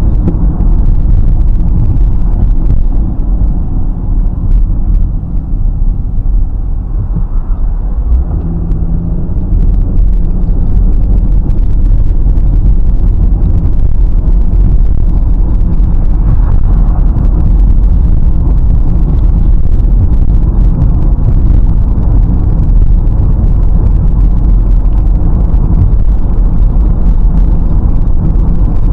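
Steady low rumble of a car driving on asphalt: tyre and road noise heard inside the cabin through a dashcam's microphone.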